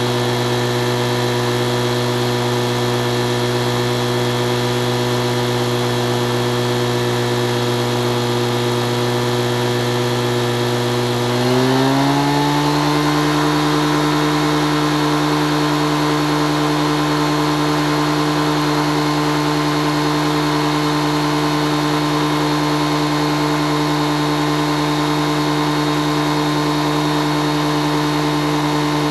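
Microlight trike's engine and pusher propeller running steadily at a low idle, then revving up over about a second, a little under halfway through, and holding a higher steady speed while the trike stays parked.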